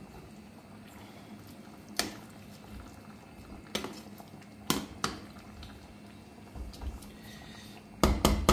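A metal ladle stirring dhal in a large aluminium pot, knocking against the pot a few separate times, then a quick cluster of louder clanks near the end. A low, steady simmer of the pot on the gas flame underneath.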